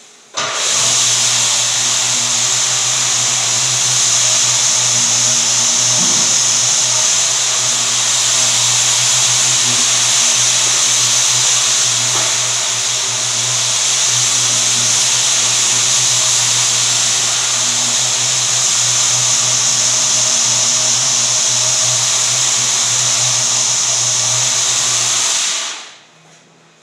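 Vacuum cleaner switched on about half a second in, running steadily with a loud hiss over a low hum, then switched off near the end.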